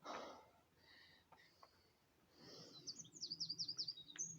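A bird singing a fast run of high, down-slurred chirps, about six a second, through the last second and a half. A short breathy rush of noise comes at the very start.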